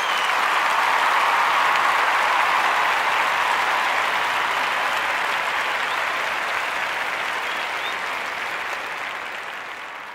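Steady, dense rushing noise with a few faint high chirps, tailing off near the end.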